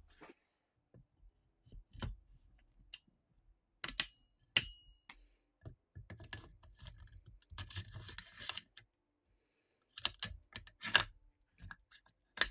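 Metal parts of a GHK M4 gas-blowback airsoft rifle being handled as the upper receiver is fitted onto the lower receiver: scattered clicks and knocks, with one sharp metallic click that rings briefly about four and a half seconds in.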